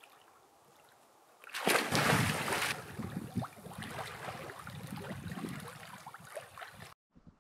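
A person plunging into lake water with a loud splash about a second and a half in, then the splashing and sloshing of swimming strokes that fades a little before cutting off near the end.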